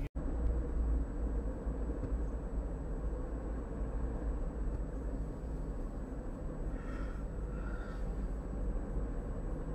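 Steady low rumble of a car's road and engine noise, driving at about 40 km/h and heard from inside the cabin.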